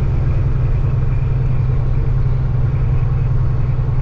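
Diesel engine of a loaded Peterbilt semi truck droning steadily at highway speed, heard from inside the cab along with road noise.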